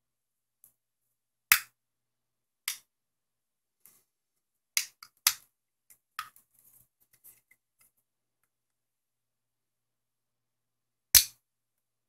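Plastic case of a Texas Instruments BP-7 calculator battery pack being pried open with a screwdriver: a series of sharp, irregular clicks and snaps as the case gives. The loudest snaps come about a second and a half in and near the end.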